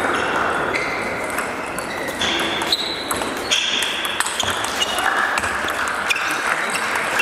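Table tennis rally: the ball clicking off the rackets and the table in a run of short, sharp hits, over the background of a large hall.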